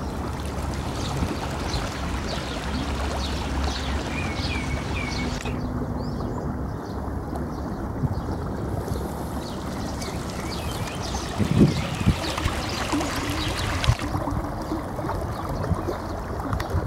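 Muddy floodwater rushing along a concrete channel: a steady, splashing flow.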